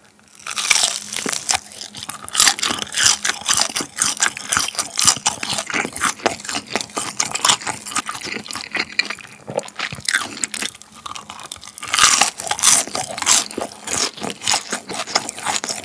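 Close-miked crunching and chewing of guobaorou, crispy starch-battered fried pork, in many quick crisp crunches, with a louder bout of crunching about twelve seconds in as a second piece is bitten.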